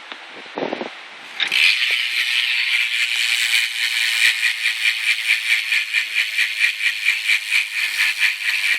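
Shadow Raptor cassette hub of a BMX bike freewheeling: its pawls make a loud, rapid buzz of clicks as the rear wheel spins. The clicking starts about a second and a half in.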